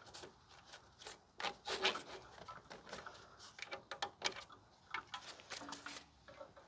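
Light, irregular clicks, scrapes and rubbing of hands working the ABS wheel-speed sensor wiring harness and its clips free at the pickup's front wheel hub, moving it out of the way.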